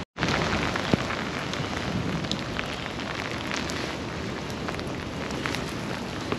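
Steady rain falling on wet pavement, with scattered close drops ticking; the sound cuts out for an instant right at the start.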